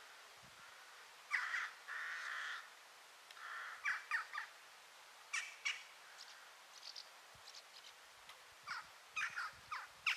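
Birds calling: a string of short calls, some in quick pairs, with a couple of longer ones in the first few seconds, over a faint steady hiss.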